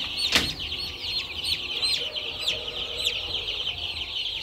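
Dense chorus of peeping from hundreds of five-day-old broiler breeder chicks: many high, short peeps overlapping without a break. A single sharp knock about half a second in.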